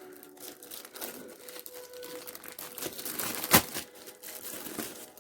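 A sealed packet of miniatures being torn open and handled, crinkling and crackling unevenly, with one sharp crack about three and a half seconds in.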